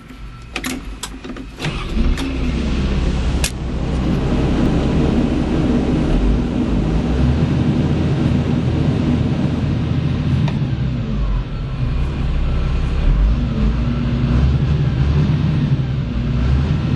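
A few sharp clicks, then the John Deere 225C LC excavator's diesel engine starts about two seconds in and runs steadily at a constant pitch.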